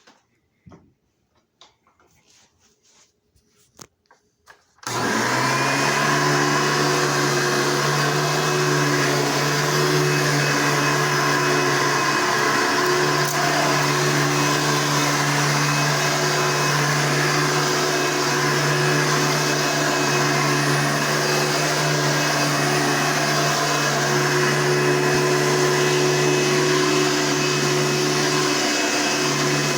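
A few faint clicks, then about five seconds in a Hoover Elite 6.0 amp upright vacuum cleaner switches on and runs steadily at full speed with a constant motor hum and whine.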